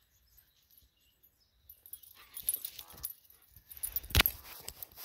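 A dog nosing right up to the microphone, its breathing and movement heard close after a quiet first two seconds, with one sharp knock about four seconds in as it bumps the phone.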